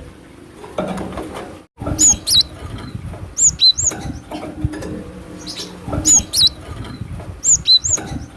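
Cinereous tit (glatik batu) calling: short, high, sharply inflected notes in quick groups of two or three, repeated about every one and a half seconds.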